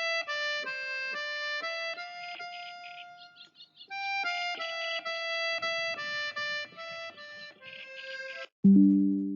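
Instrumental background music: a high melody of short held notes with a reedy tone, thinning out about three and a half seconds in, then resuming and ending on a loud low chord near the end that fades away.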